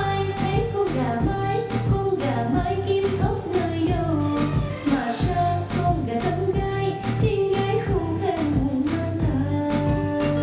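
A song: a singing voice carrying a melody over a band accompaniment with a steady beat.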